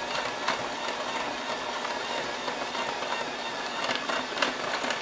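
KitchenAid electric hand mixer running steadily on its lowest speed, its beaters churning butter, cream cheese and icing sugar in a glass bowl, with a few light clicks.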